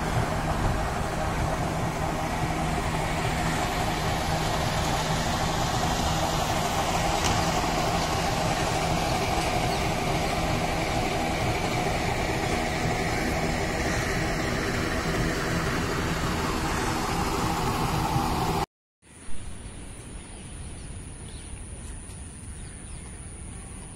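Steady noise of city road traffic, engines humming under a dense wash of sound. Near the end it cuts off abruptly and gives way to a much quieter outdoor background with a thin, steady high-pitched whine.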